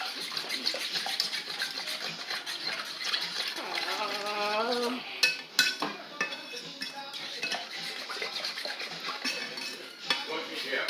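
A utensil stirring briskly in a metal saucepan, with a fast run of clinks and scrapes against the pan's sides and bottom.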